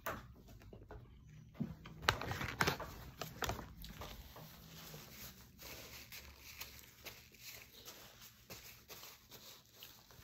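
Paper napkin crinkling and rustling as it is pressed and rubbed over the mouth and nose, loudest from about two to four seconds in, then fainter rustles and small clicks.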